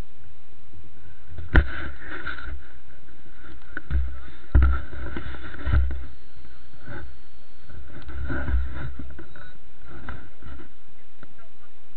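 Low rumble and a few sharp knocks from a jet ski drifting on calm water, the loudest knock about one and a half seconds in.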